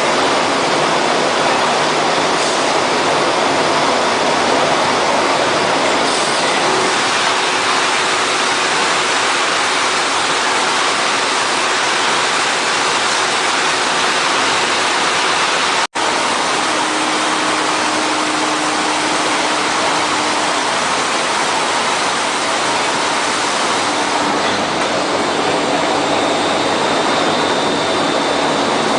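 Glass tempering furnace line running with a steady, loud rushing noise. The sound cuts out for a split second about halfway through.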